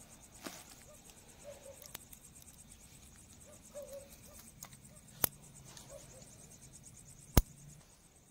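A few sharp knocks over a quiet outdoor background, two of them loud, about five and seven and a half seconds in, with faint short chirps between them.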